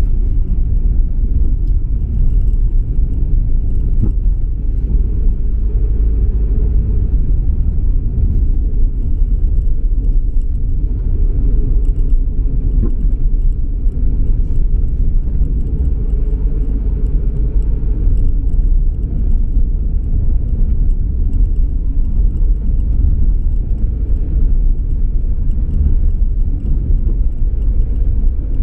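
Steady low rumble of a car on the move: engine and tyre noise.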